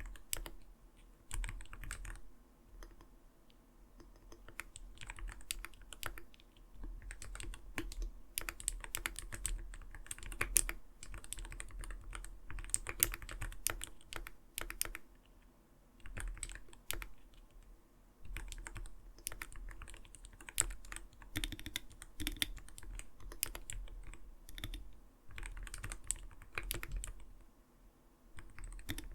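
Typing on an Arbiter Studio Polar 65 Phantom mechanical keyboard: a steady stream of soft, muted keystrokes in quick runs, with short pauses between bursts. The keys give the low, rounded "kotokoto" sound the keyboard is tuned for.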